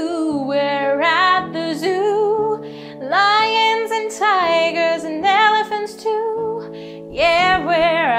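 A woman singing a children's zoo song over a light instrumental backing of held notes, in phrases of a second or two.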